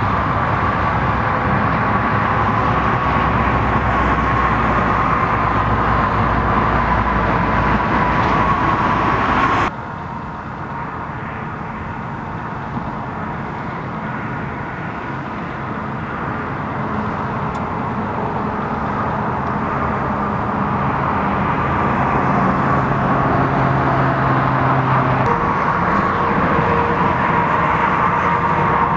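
Steady hum of vehicle engines idling at the roadside and road traffic, with a steady high tone running through it. The sound drops sharply about ten seconds in and slowly builds back up.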